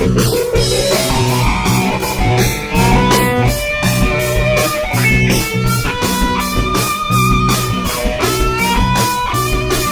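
Background music: a guitar-led rock tune with a steady beat.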